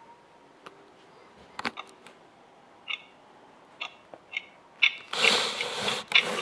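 Scattered sharp clicks and clacks, as of small plastic toys being handled, then a burst of rustling noise about five seconds in and quicker clicking near the end.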